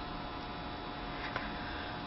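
Steady electrical mains hum with background hiss, with a couple of faint ticks about a second and a quarter in.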